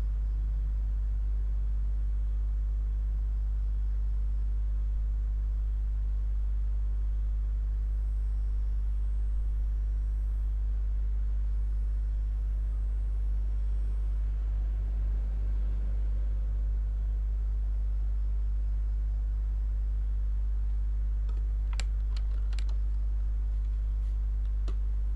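A steady low hum, with a few sharp clicks near the end.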